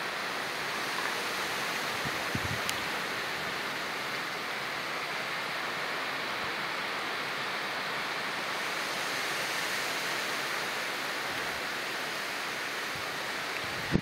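Heavy hurricane rain falling as a steady, even hiss.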